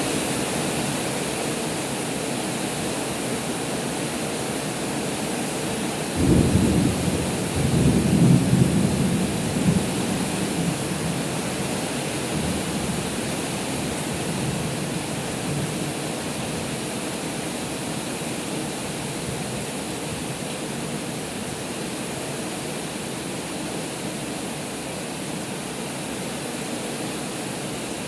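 Heavy rain pouring steadily, with a sudden clap of thunder about six seconds in that rumbles on for several seconds.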